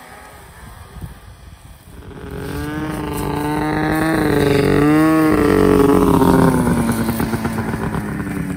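Two snowmobiles approaching at speed, their engines growing louder from about two seconds in, the pitch wavering as the throttle varies, then easing off and dropping in pitch as the sleds slow to a stop.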